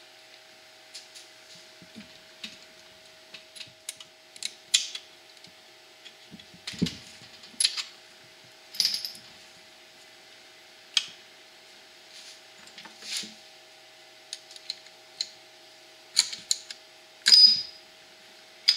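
Hand tool clicking and clinking on metal at irregular intervals as the connecting rod bolts inside an opened Briggs & Stratton 17 HP engine are worked loose, over a faint steady hum.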